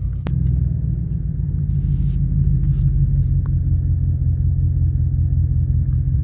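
Pickup truck rolling across a field, heard from inside the cab as a steady low rumble.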